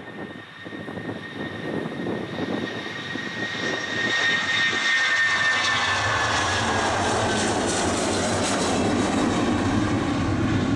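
Boeing 757-200 jet engines (Rolls-Royce RB211s) at takeoff power as the airliner rolls, lifts off and climbs past. A high whine drops slightly in pitch as it passes. About four seconds in it swells into a loud, steady jet roar.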